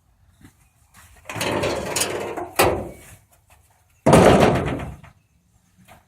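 Car hood being closed on a Plymouth Duster: a first, softer closing with a scrape ending in a sharp clack about two and a half seconds in, then the hood slammed shut about four seconds in, the loudest hit.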